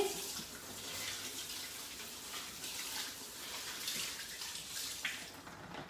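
Kitchen tap running, water pouring over a silicone kouglof mould that is being rinsed under it.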